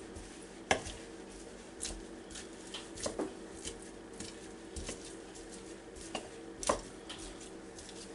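Plastic meat and potato masher pressing and chopping through drained canned albacore tuna in a glass bowl. It makes about seven short knocks and clicks at irregular intervals, a second or more apart.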